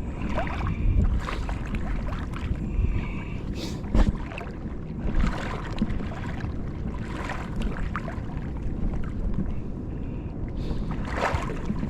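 Wind buffeting the microphone in a steady low rumble, with water lapping and splashing at the shore. There is a sharp knock about four seconds in.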